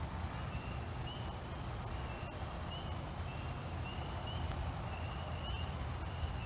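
Crickets chirping at night in a steady, high-pitched rhythm of about one to two chirps a second, over a low rumble.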